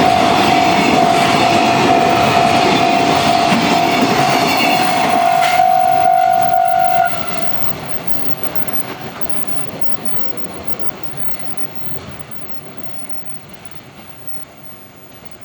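Container freight train rolling past over the rails with wheels clattering, then fading away. A steady ringing tone, the level-crossing warning bell, runs with it and cuts off about seven seconds in, after which the train noise dies down.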